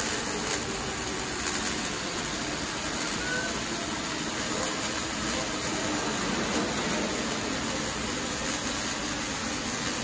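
Automatic welding machine's arc running steadily as the torch welds the circumferential seam of a water heater tank: a continuous, even hiss with no pauses.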